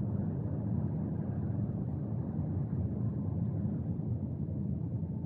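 Steady low rumble of a car's tyres and engine heard from inside the cabin as the car drives slowly along.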